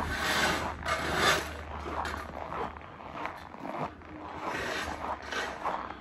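Footsteps crunching in snow at a steady walking pace.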